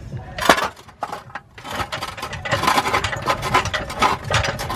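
Metal clanking and rattling from heavy car suspension parts and tools: one loud clank about half a second in, then a dense, irregular run of knocks and rattles.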